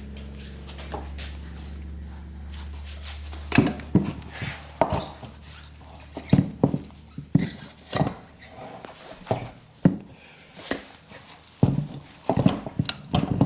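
Irregular sharp metal knocks and clanks, a dozen or so, from a wheel and tire being fitted back onto a Jeep Cherokee's front hub. A low steady hum underneath stops about three and a half seconds in.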